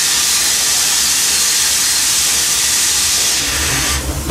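Steam locomotive letting off steam: a loud, steady hiss that cuts off about four seconds in.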